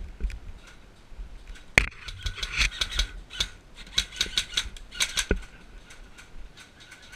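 Airsoft gunfire: a run of sharp, snapping mechanical clicks from single shots. One louder crack comes about two seconds in, and the clicking is densest for the next few seconds.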